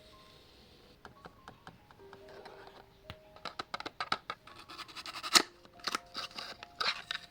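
Advent calendar cell packaging being opened by hand: scratching and tearing with sharp clicks, sparse at first and busier from about three seconds in, over soft background music.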